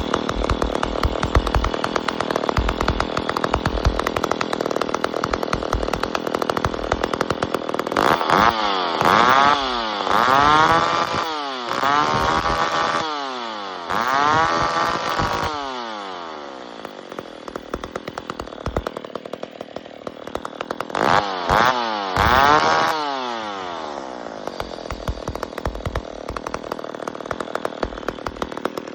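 McCulloch 1010A two-stroke chainsaw, just started and idling. About eight seconds in it is revved in a run of quick throttle blips, the pitch rising and falling with each one, then drops back to idle. Two more blips come a little past twenty seconds before it settles to idle again.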